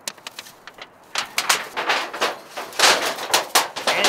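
Thin sheet-metal stove chimney being handled and unrolled: a few light clicks, then from about a second in a run of irregular rattling and scraping metal noises.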